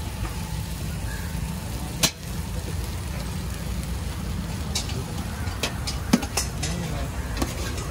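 Metal spatula scraping and tapping on an iron dosa griddle as sauce is spread over the dosa. A few sharp clicks, the loudest about two seconds in and a cluster around six seconds, over a steady low rumble.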